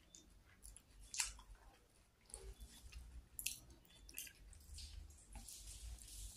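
Quiet eating sounds: a metal spoon cutting and scraping through batagor in sauce on a ceramic plate, with a few sharp clinks of spoon on plate, about a second in and again around three and a half seconds in, and soft wet chewing.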